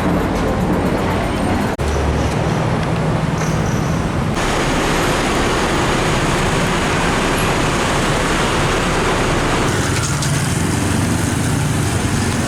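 Busy street traffic: motor vehicle engines running with steady road noise, in short clips that cut abruptly about two, four and ten seconds in.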